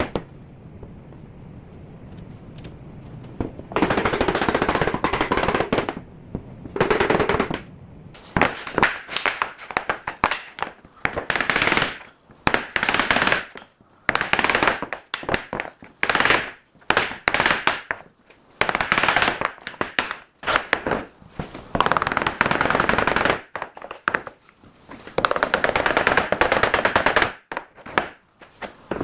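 Power tool in a woodworking shop running in short, rapid rattling bursts, repeated many times with brief pauses between.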